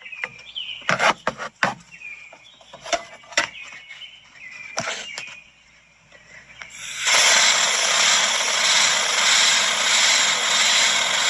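Scattered light clicks and knocks of handling, then, about seven seconds in, an aerosol can of starting fluid sprays a steady loud hiss into the engine's intake through an opened vacuum-line port. It carries on to the end.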